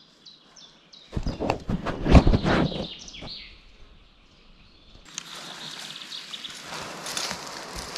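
Woodland birds chirping, broken about a second in by two seconds of loud crunching and rustling. From about five seconds a steady hissing rustle takes over.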